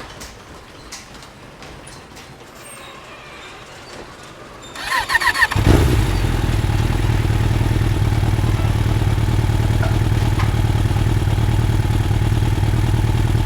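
A motorcycle engine being started: after a few quiet seconds it cranks briefly about five seconds in, catches, and settles into a steady, loud run.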